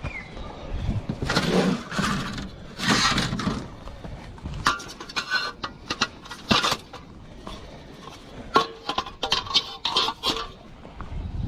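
Irregular clinks, knocks and scrapes of hard objects being handled, mixed with swells of rushing noise.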